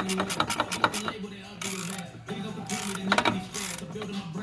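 Hand socket ratchet clicking in quick bursts as a bolt is turned, one burst at the start and another about three seconds in.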